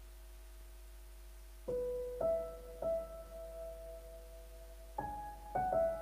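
Keyboard playing a slow melody in single notes: three notes a little after the first second and a half, a short pause, then more notes near the end, each note ringing on after it is struck.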